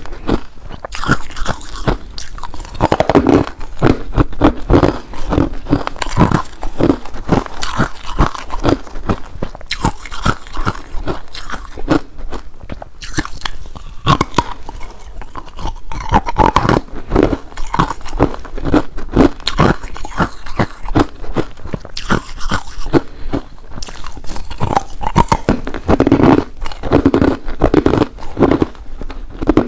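Ice cubes being bitten and chewed close to the microphone: continuous irregular crunching and cracking, with fresh bites every second or two.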